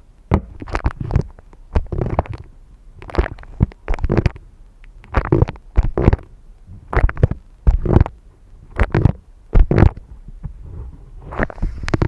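Fingers tapping and scratching a coffee glass close to the microphone, in irregular strokes about one or two a second, each with a deep thump.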